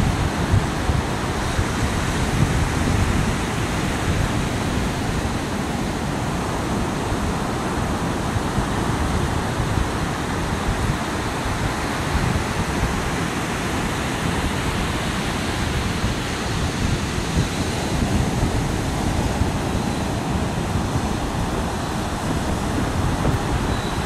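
Strong wind buffeting the microphone over the steady rush of Pacific surf breaking on the beach.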